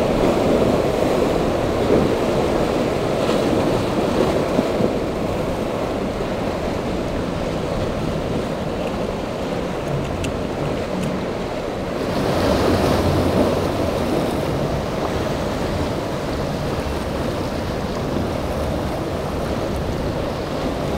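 Rough inlet surf churning and breaking, with wind buffeting the microphone. The wash swells louder about twelve seconds in.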